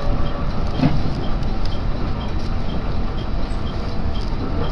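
Local train running between stations, heard inside the carriage: a steady rumble of wheels on the rails and running gear.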